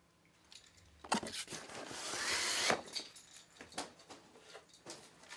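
Cardboard packaging being handled: a knock about a second in, a scraping slide of cardboard against cardboard that rises in pitch and ends with another knock, then scattered lighter knocks and rustles.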